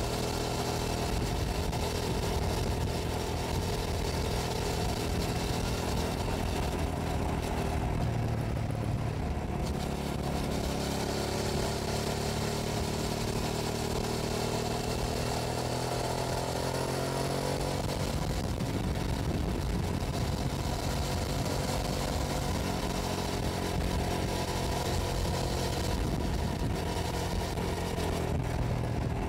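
2006 Hyosung GT650S V-twin engine running on the road, its pitch rising and falling with the throttle, now firing on both cylinders after a carburettor clean. Wind rushes over the bike-mounted microphone throughout.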